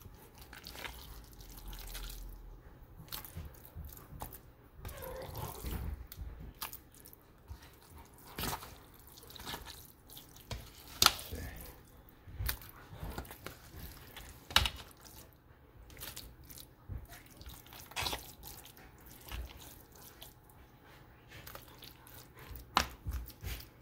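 Wooden spoon scooping a moist shredded chicken and vegetable mix from a stainless steel bowl and packing it into plastic containers: irregular wet plops with scattered knocks of the spoon against the bowl and container rims, the sharpest about eleven seconds in.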